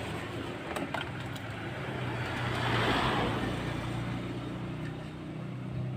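Motor vehicle engine running close by, a steady low hum that swells and fades as a vehicle passes about halfway through, with a few light clicks about a second in.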